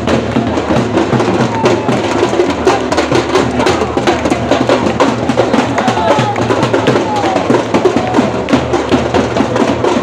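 A group of supporters beating shoulder-slung drums with sticks in a fast, steady rhythm, with a crowd of voices shouting and chanting over it.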